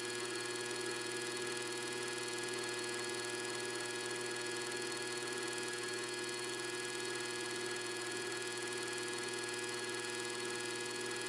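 Salvaged GE 5KCP160FFA001S two-speed single-phase AC washing machine motor running on mains power: a steady hum that does not change in pitch or level.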